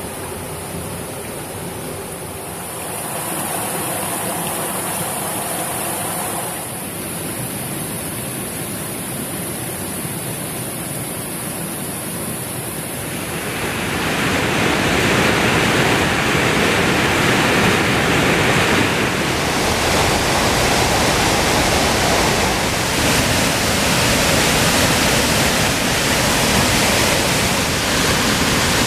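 Water running and dripping at a karst spring under a rock overhang. About halfway through it gives way to the louder, steady rush of the flooded spring's outflow pouring as white water over rocks.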